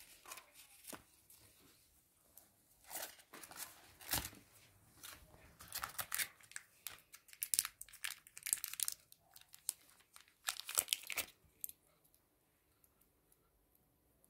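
Paper leaflets and accessory packaging from a phone box being handled: irregular bursts of crinkling and tearing, falling quiet a couple of seconds before the end.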